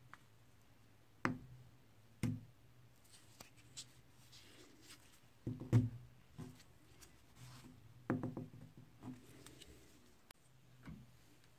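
Sharp knocks and clicks of a metal rod worked in the hole of a small wooden handle grip, coming in little clusters with the loudest about halfway through, and light scraping between them, over a low steady hum.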